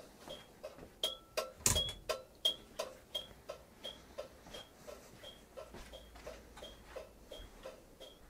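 Turn-signal flasher of a Piaggio Ape Classic 400 ticking steadily as the indicators flash, about three short ticks a second. One louder knock comes about two seconds in.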